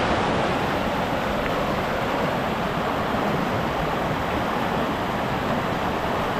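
Fast-flowing mountain stream rushing over rocks and boulders: a steady, unbroken rush of white water.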